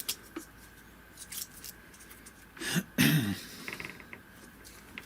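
Small clicks and rustles of equipment and cable being handled, with a louder bump and scrape about three seconds in.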